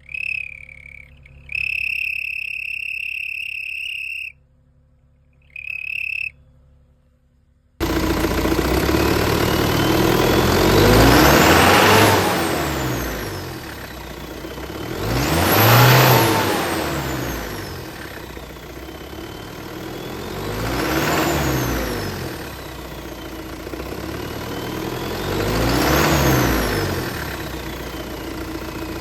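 A steady high whistle tone sounds three times in the first several seconds. Then a car engine is revved four times, each rev rising and falling, with faint high tones rising and falling along with it. The fitted turbo-whistle gadget gives little or no whistle and seems not to be working.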